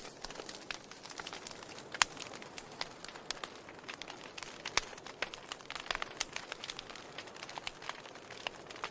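Wood fire crackling: irregular sharp snaps and pops of burning wood over a soft hiss, with the loudest snap about two seconds in.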